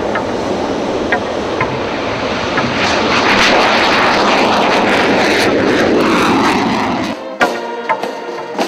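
Jet fighter's engine roaring as it takes off and climbs away, loudest a few seconds in, with its pitch falling toward the end. About seven seconds in the roar cuts off abruptly and music takes over.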